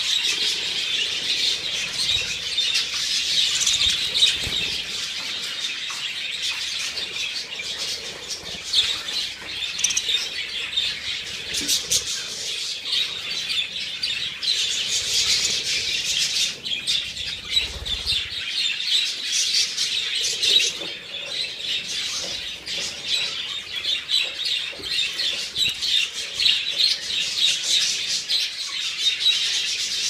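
Budgerigars chattering steadily, over wing-flapping and splashing as a budgie bathes in a small dish of water.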